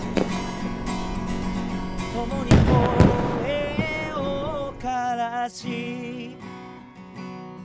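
A song backed by acoustic guitar, with fireworks crackling and popping over it for the first three seconds or so. After that a melody line with vibrato carries on over the sustained guitar chords.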